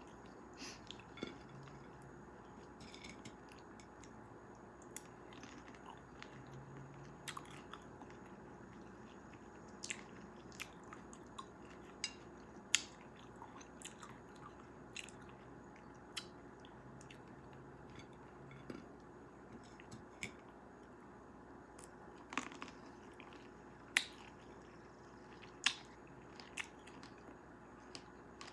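Close-miked chewing and biting of fresh cherries, with sharp wet clicks and crunches at irregular intervals.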